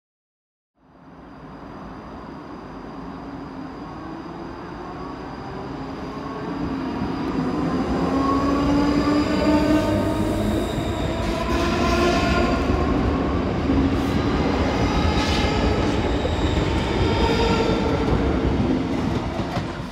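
ScotRail electric multiple unit running along the platform, gathering speed: its traction motor whine rises in pitch over a deep wheel rumble and then levels off. A few sharp clicks of wheels over rail joints come in the second half.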